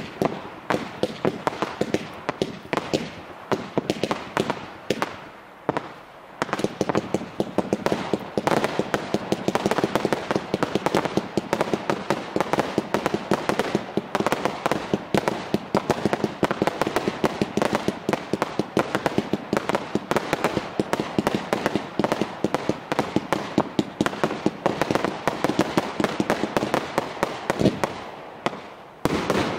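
Fireworks display firing continuously: a dense run of bangs and crackling from aerial bursts, with a brief lull about six seconds in and another just before the end.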